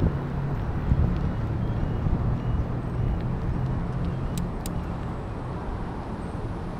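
A motor vehicle's engine running close by in road traffic, a steady low hum over road noise that fades over the last couple of seconds. Two short high clicks come about four and a half seconds in.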